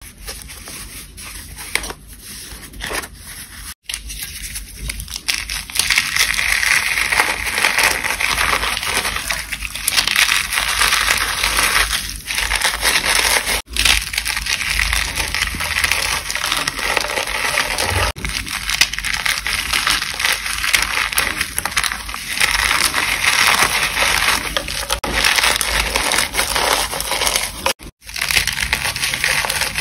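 Reformed gym chalk crushed and crumbled by hand over a dish of water: dense, crunchy crackling, fainter for the first few seconds and then steady, with a few brief breaks.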